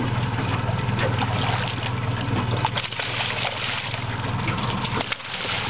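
Water splashing and lapping at the side of a boat as a hooked steelhead is played at the surface, over a steady low hum.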